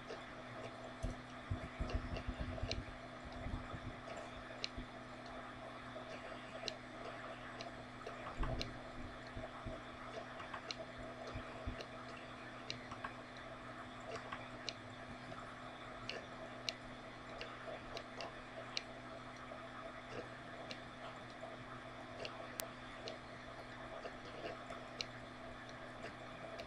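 Room tone: a steady low hum with faint regular ticks, and a few soft low thumps in the first few seconds and again about eight seconds in.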